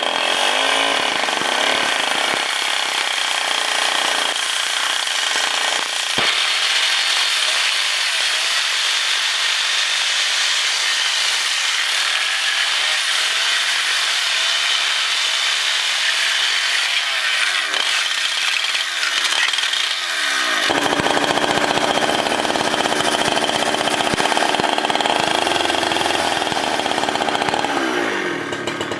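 Stihl two-stroke chainsaw running at high revs, its chain cutting notches into a timber beam. About two-thirds of the way through the sound changes and gets a deeper, heavier low part. It falls away at the very end.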